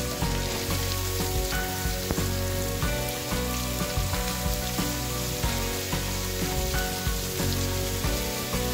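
Chopped onions sizzling in hot oil in a kadai, a steady frying hiss. Instrumental background music with held notes plays over it.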